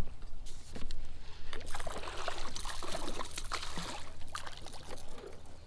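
A hooked catfish splashing and thrashing at the surface beside the kayak: a run of water splashes and slaps from about half a second in, easing off near the end.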